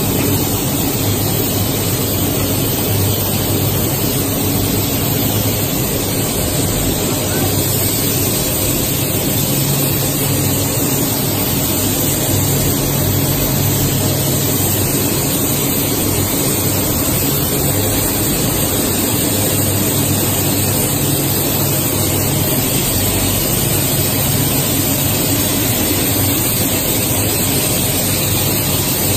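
Running PVC film extrusion line: a loud, steady machine din with a low hum underneath.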